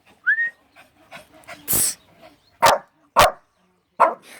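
A person's fake sneeze, a short noisy burst just under two seconds in, followed by a Shih Tzu barking three times in short, sharp barks in reaction to it.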